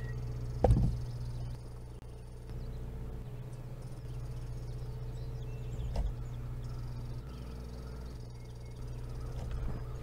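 Outdoor live-cam ambience: a steady low hum with faint high chirring in the background, broken by a dull thump less than a second in and another about six seconds in.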